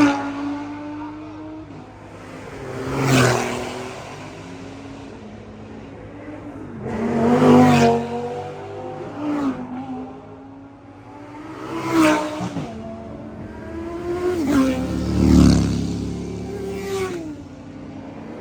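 A string of cars driving past one after another, each engine revving up and easing off as it goes by, a car every three to four seconds.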